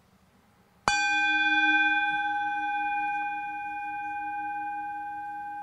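A handheld singing bowl struck once with a mallet about a second in, then ringing on in several steady tones with a slow wavering low hum, fading gradually.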